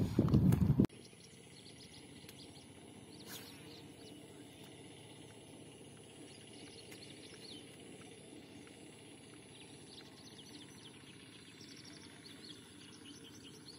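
Quiet open-air ambience with faint, quick bird chirps now and then and a thin, steady high-pitched whine. A loud burst of noise cuts off abruptly about a second in.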